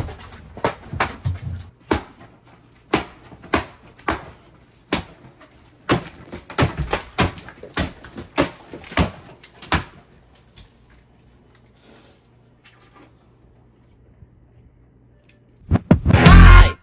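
A watermelon being struck over and over, sharp wet thuds and splatters coming irregularly a few times a second for about ten seconds, then stopping. Music starts about a second before the end.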